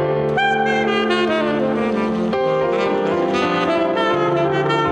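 Tenor saxophone playing a quick flurry of notes in a free jazz improvisation, over sustained chords from a Nord Stage electric piano.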